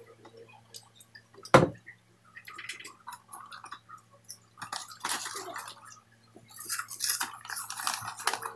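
Tabletop eating and drinking sounds: a sharp knock about a second and a half in as a cup or plastic pitcher is set down, then stretches of noisy sipping and slurping through drinking straws, with cups and plates being handled.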